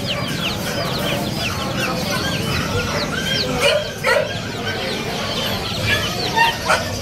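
A crowd of young chicks peeping: a dense, constant chorus of short, high cheeps that fall in pitch. A few lower calls cut in about halfway through and near the end.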